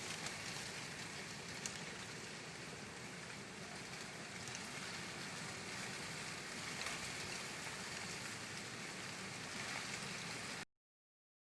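Steady rain falling: an even hiss with a few faint drop ticks. It cuts off suddenly near the end.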